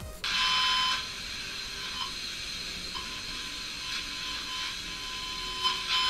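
Small loudspeaker fed by a mini amplifier board giving a steady, high electronic whine with a buzzy edge, broken by faint ticks about once a second.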